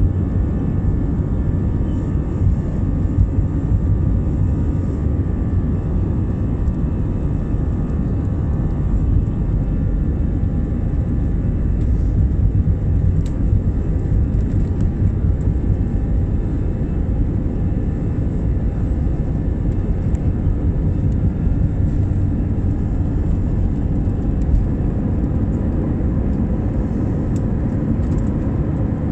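Cabin noise of an easyJet Airbus A320-family jet airliner on its takeoff roll, heard from a window seat beside the wing. The engines at takeoff thrust give a steady heavy rumble with a faint whine over it.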